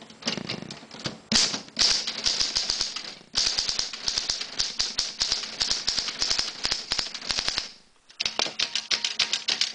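1939 Imperial 50 manual desktop typewriter being typed on quickly, the keys striking in rapid, even runs of sharp clacks, with a short pause about eight seconds in.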